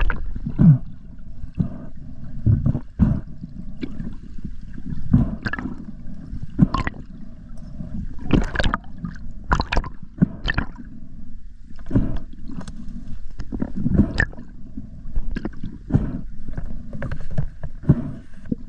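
Muffled rush of water against an underwater camera housing as a freediver swims, with irregular knocks and clicks from the speargun and gear, roughly one or two a second.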